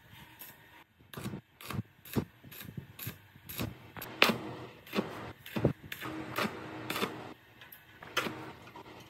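Stick-welding electrode striking short arcs on a steel blade guard: an irregular run of brief crackles and clicks, about one to two a second, as it tack-welds a steel strip in place.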